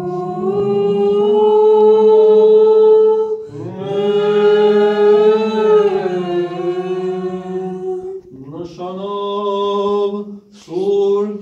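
A man's voice chanting an unaccompanied Armenian church hymn in long, steadily held notes, followed by a few shorter ones near the end.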